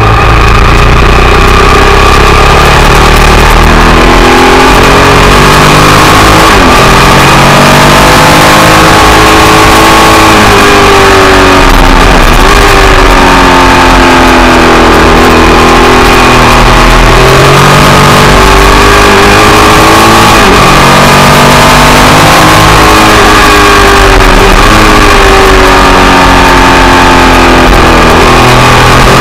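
Ducati Monster 1100 EVO's air-cooled L-twin engine heard from on board at track speed. Its pitch climbs as it accelerates and drops sharply several times as the rider shifts or rolls off for corners, over a constant rush of wind. The recording is very loud throughout.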